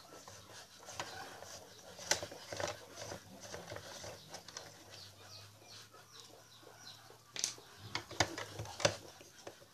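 Phillips screwdriver turning screws out of a metal detector's plastic control box: small irregular clicks and scrapes of the bit and screws, with a louder run of sharp clicks near the end.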